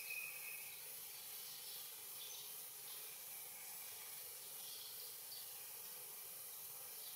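Quiet outdoor ambience: a steady hiss with a few faint, short bird chirps, the clearest right at the start.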